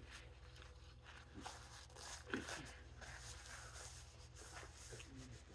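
Faint rustling of a paper napkin being handled, over a low steady room hum.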